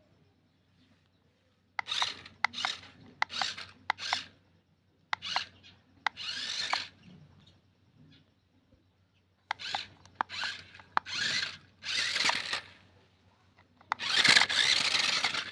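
Toy RC car's small electric motor and gears whirring in short stop-start throttle bursts, about a dozen, with the longest and loudest burst near the end.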